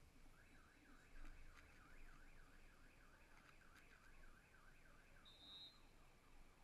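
Faint electronic alarm warbling, rising and falling about three times a second, with a short high beep about five seconds in.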